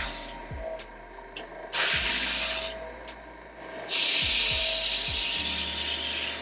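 Airbrush spraying hair color enhancement onto a paper towel in hissing bursts: one spray cuts off just after the start, a one-second spray follows a little under two seconds in, then a short puff, and a longer spray begins about four seconds in.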